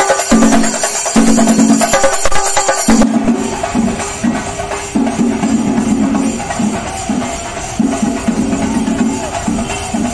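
A tambourine jingling in a fast beat among a crowd of fans chanting and shouting. About three seconds in, the bright jingling drops away and a duller rhythm with chanting carries on.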